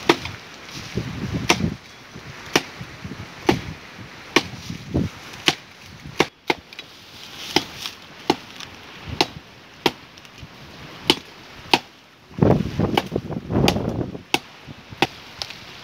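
Machete chopping into a thin green tree trunk, sharp strikes about one a second, with wind buffeting the microphone between strokes.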